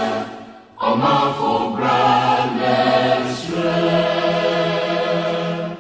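A choir singing a song in a Ghanaian language as background music, with held notes and a short pause about half a second in; the voices stop near the end, leaving a quieter held chord.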